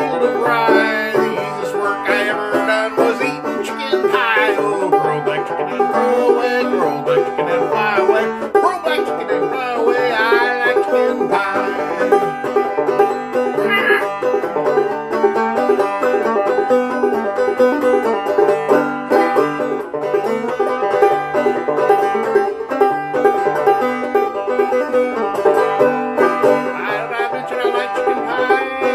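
Banjo played in a brisk old-time style. A man's voice joins in with singing a few times.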